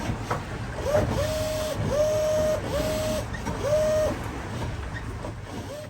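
A small motor whining in four short bursts, each spinning up to a steady pitch for about half a second and then winding down.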